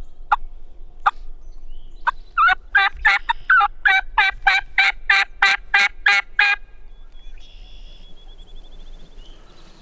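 Turkey yelping: a few spaced yelps, then a steady run of about a dozen loud yelps at roughly three a second, each breaking between a lower and a higher note, stopping about two-thirds of the way through.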